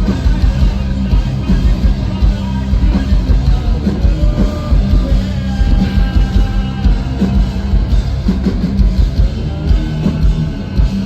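Metal band playing loud and live: distorted guitars and bass holding low notes over fast, pounding drums.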